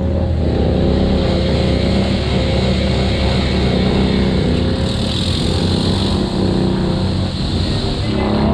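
Honda ATV engine running steadily at high revs, with a rush of noise swelling about halfway through.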